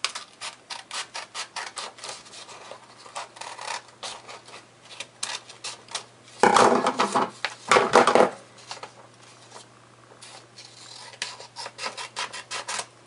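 A sheet of paper being handled and folded, with repeated rubbing and scratching as the creases are pressed down. Two louder paper rustles come about six and a half and eight seconds in.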